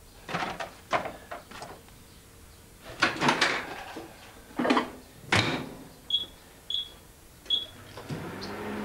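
Kitchen clatter as food is handled and a microwave oven door is shut with a clunk, then three short keypad beeps. Near the end the microwave starts running with a steady hum.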